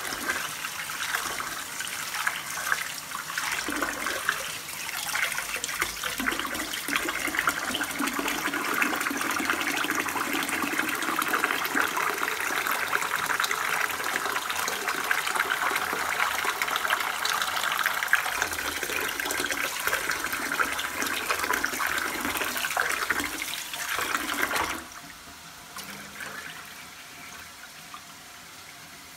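Kitchen tap running into a pot of soaked chickpeas in a stainless steel sink while hands rub and swish them, rinsing off the loosened chickpea skins. The water stops abruptly near the end.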